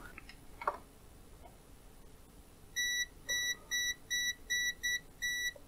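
Kaiweets HT118A multimeter's non-contact voltage detector beeping, a short high beep repeated just over twice a second, starting about three seconds in: the signal that it senses live mains voltage in the cable held against it.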